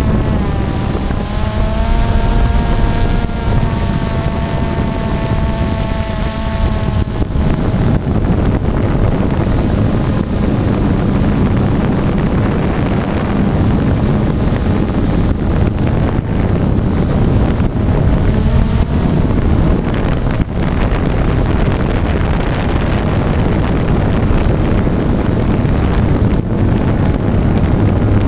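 Multirotor drone's electric motors and propellers heard from the onboard camera. A whine of several tones drops in pitch about a second in and fades out after about seven seconds, leaving a steady rushing of rotor wash and wind on the microphone.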